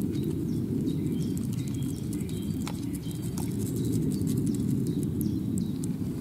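Small watery ticks and splashes as a metal tea strainer scoops tadpoles through shallow muddy water, over a steady low rumble, with a few short high chirps.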